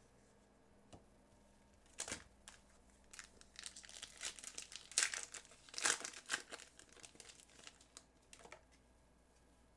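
Trading card pack wrapper crinkling and crackling in the hands in an irregular run of rustles, loudest about halfway through, then stopping well before the end.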